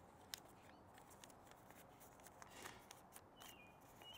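Near silence: faint crinkles and ticks of origami paper being folded by hand, with two faint high chirps near the end.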